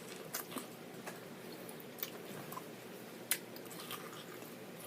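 Close-up chewing and biting of an elote (Mexican street corn on the cob), soft and wet, with a few sharp clicks; the loudest comes about three seconds in.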